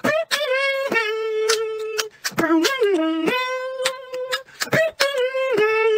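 Beatboxing: a hummed melody in long held notes, dropping in pitch for about a second near the middle and coming back up, with sharp mouth-percussion clicks over it.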